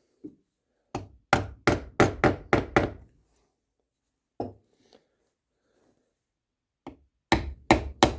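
Sharp knocks on wood as the double set trigger is tapped down into its inlet in the wooden rifle stock: a quick run of about seven taps, one more, then another short run near the end.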